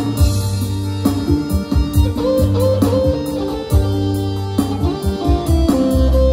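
Instrumental music from an electronic keyboard played through a large PA sound system: a guitar-like lead melody over a heavy bass line and a steady drum beat.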